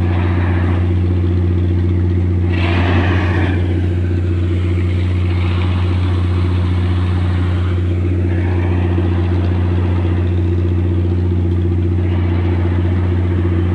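Tugboat's diesel engine running steadily under tow, a loud, even low drone.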